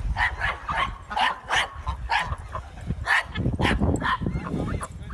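Small dog yapping rapidly and repeatedly, two or three short barks a second, over a low rumble.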